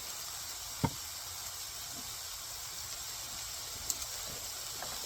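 Onions, mushrooms, garlic and cabbage sautéing in butter, sizzling steadily in the pan. Two light taps cut through, one just under a second in and one about four seconds in.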